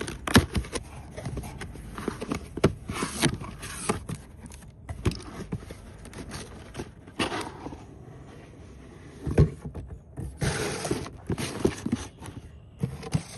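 A cardboard shipping box being handled and opened: scraping and rustling cardboard, with scattered knocks and several longer swishes of flaps and packing being pulled.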